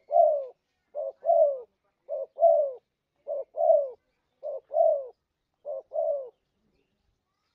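Spotted dove (terkukur) cooing: a short note followed by a longer, falling coo, repeated six times at a steady pace of about one call a second, then stopping near the end. It is a lure call used to attract wild doves.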